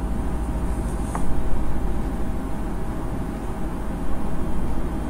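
Steady low background rumble, with light rustling of a thin wrapping bag as a boxed activity pack is handled and a short click about a second in.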